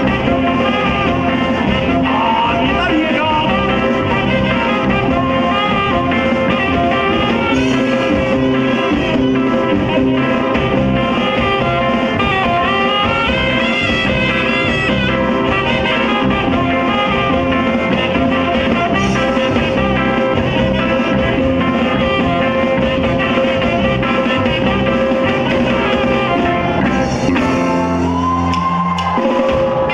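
Live band music from a three-saxophone horn section with electric guitar, bass guitar, drum kit and congas, playing steadily. Near the end the band holds a long chord.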